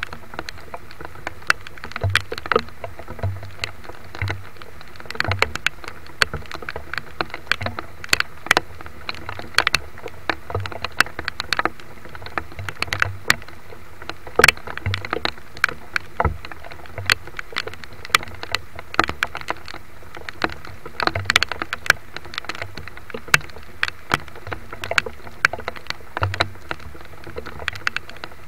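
Raindrops tapping irregularly on a surface, several sharp ticks a second, some landing with a soft low thud.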